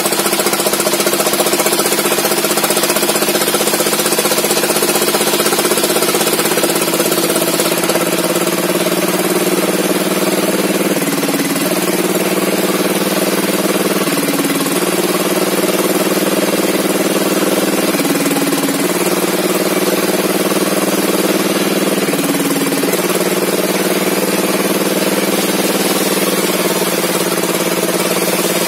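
Engine of a log-sawing machine running steadily under load. Its pitch drops briefly about four times, as if the engine bogs down as the saw cuts.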